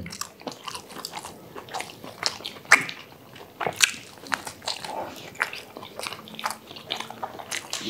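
Two people eating burgers: chewing and biting, with irregular mouth smacks and clicks a few times a second.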